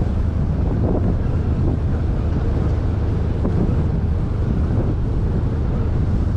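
Small open-top river cruise boat under way: the low, steady drone of its engine mixed with wind buffeting the microphone and some water noise.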